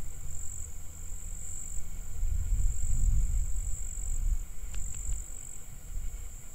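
A steady, high-pitched insect trill runs without a break, over a low rumble that swells around the middle.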